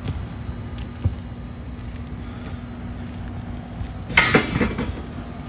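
A brief, loud clatter of metal on metal about four seconds in, as parts or tools are handled in the opened HVAC unit, over a steady machine hum.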